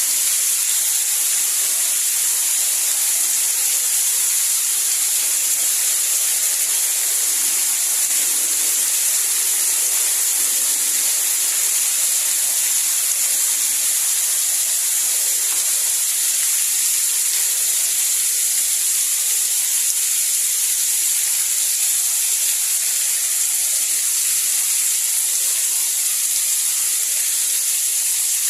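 Steady rain, an even unbroken hiss strongest in the high treble, with no low rumble and no separate drops or thunder standing out.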